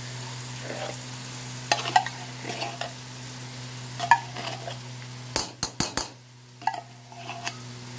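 Ground pork sizzling in a hot aluminium wok, stirred and scraped with a metal spoon, with scattered clicks. A little past the middle, four quick sharp taps of the spoon on the wok. A steady low hum runs underneath.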